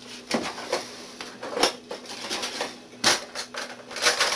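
Kitchen utensils and cookware clinking and clattering: a handful of separate sharp knocks and clicks, the loudest about a second and a half and three seconds in, with a quick run of them near the end.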